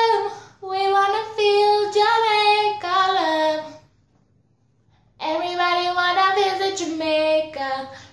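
A woman singing alone, without accompaniment, in long held notes. She sings one phrase, stops for about a second around four seconds in, then sings another.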